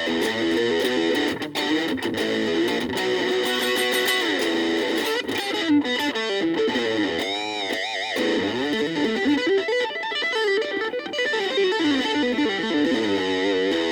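Gaban Les Paul-type electric guitar played through a VOX Soundbox Mini amp: a run of single-note lead lines with slides, and wide string bends with vibrato in the middle.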